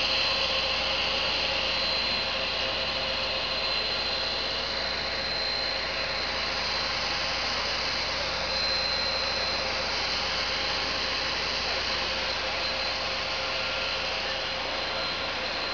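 HDPE pipe extrusion line running: a steady machine hiss and hum with a thin, constant high whine.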